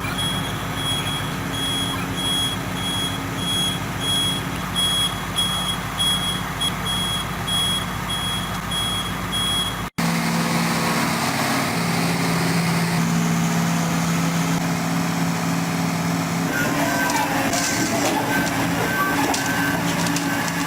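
Diesel engine of a heavy construction machine running steadily while its reversing alarm beeps in a fast, even rhythm. After an abrupt cut about halfway, another heavy machine's engine runs, with a lower-pitched reversing beeper starting near the end amid some metallic clanking.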